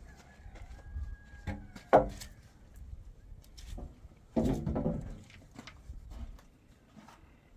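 Long wooden roof poles being handled against cinder-block walls and each other: scattered knocks and scrapes, with one sharp knock about two seconds in and a louder, longer sound about four and a half seconds in.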